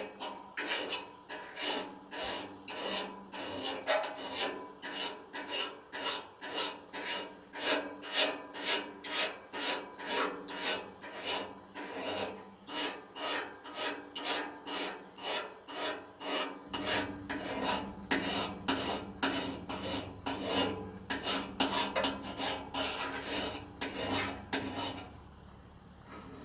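Hand metal file rasping across the steel blade of a pair of loppers in steady, even strokes about two a second, filing out nicks to sharpen the edge. The strokes stop near the end.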